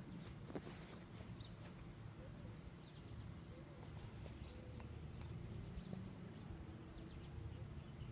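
Quiet outdoor ambience on a roof: a low rumble of wind and phone handling, a few soft footsteps scuffing on asphalt shingles, and small birds chirping now and then.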